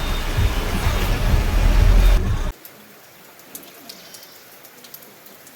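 A loud low rumbling noise cuts off abruptly about two and a half seconds in. It gives way to a quiet stretch of light rain dripping, with a bird calling briefly.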